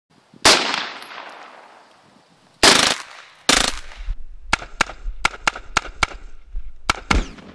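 Rifle gunfire heard from the shooter's position: one shot with a long echo, two short rapid bursts, then about nine single shots in quick, uneven succession.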